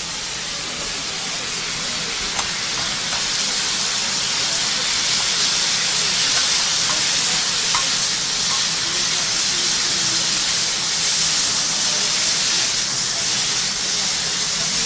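Food sizzling on a hot teppanyaki iron griddle: a steady hiss that grows a little louder, with a few faint clicks from the metal spatulas working it.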